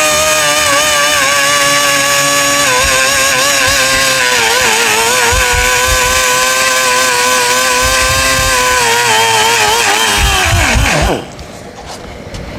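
Air-powered sander running at high speed with a steady whine, its pitch dipping each time the pad bites into the fibreglass body filler. About eleven seconds in, it is released and spins down.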